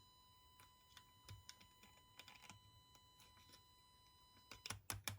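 Faint, steady high-pitched buzz of an IKEA TRÅDFRI 30 W wireless-control LED driver, the coil whine the unit is faulted for. Light clicks come and go, and near the end the buzz cuts off among a cluster of louder clicks.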